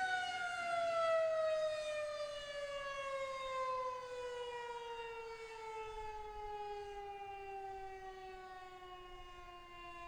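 Federal Signal 2001-130 outdoor warning siren winding down, one long tone whose pitch falls steadily and slowly while it gets quieter. Its rotator is broken, so the horn stays fixed and the tone carries no swells from rotation.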